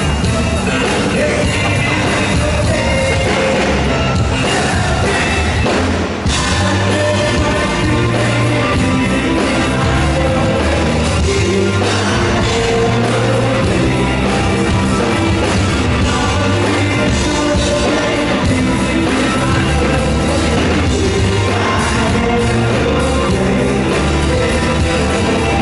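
Live rock band playing loudly with a lead vocal over bass, guitar and drums, heard in a large arena hall.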